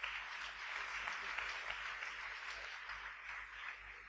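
Audience applauding, the clapping at its fullest early on and tapering off toward the end.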